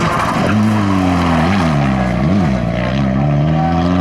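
Rally car engine: a steady engine note comes in about half a second in, jumps briefly twice, then climbs steadily in pitch as the revs rise under acceleration.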